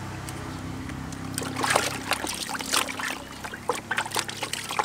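Water splashing and sloshing in a plastic basin as hands wash a baby monkey, in quick irregular splashes that start about a second and a half in, over a steady low hum.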